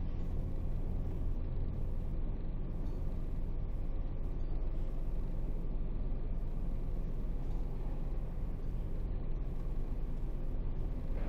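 Diesel engine of an Isuzu 8x4 30-ton truck running steadily as it drives, a low even drone. A brief sharper sound comes near the end.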